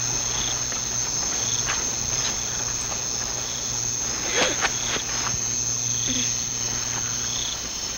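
Night-time cricket chorus: a steady high-pitched trill, with short chirps repeating about once a second. A few brief crackles come about four and a half seconds in.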